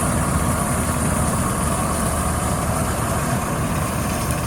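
Engine of heavy harvesting machinery running steadily, an even, unchanging hum.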